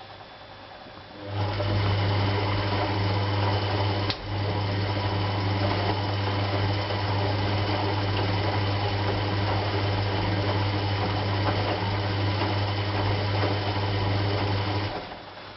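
Hoover Electron 1100 washing machine running a wash programme: a steady electric hum with a low buzz starts about a second in, falters briefly once, and cuts off about a second before the end.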